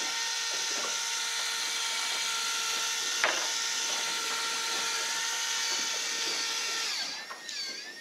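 Electric fishing reel's motor winding in line with a steady whine, with a single click about three seconds in; the motor stops about a second before the end, and wavering, warbling calls follow.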